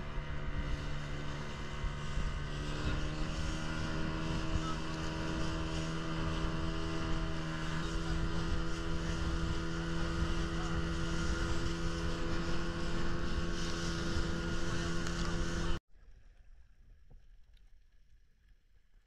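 Outboard motor of a small open skiff running steadily, with wind and rushing water. About three-quarters of the way through it cuts off abruptly to quiet underwater sound with a few faint clicks.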